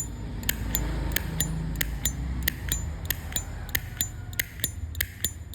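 A 1972 slim brass-cased Zippo lighter's lid flicked open and snapped shut over and over: a quick run of sharp metallic clicks, some with a short bright ring, coming in pairs about three times a second.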